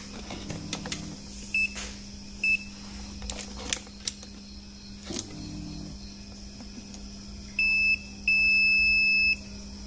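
Clamp multimeter's continuity buzzer beeping as the probes touch the blender's thermal relay terminals. Two short beeps come first, then a brief beep and a longer one of about a second near the end, with light clicks of the probe tips between. The beep signals a closed circuit: the thermal relay is conducting and still good.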